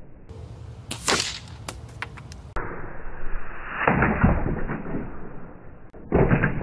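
A sharp air-rifle crack about a second in, then near four seconds the knock and clatter of a pellet hitting a plastic figurine and sending it tumbling off the board.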